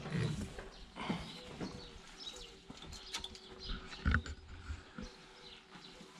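Birds chirping, with a few dull thuds, the loudest about four seconds in.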